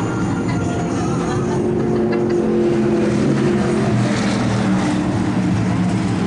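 Racing stock car's V8 engine idling steadily on pit road, with a brief swell of higher noise about four seconds in.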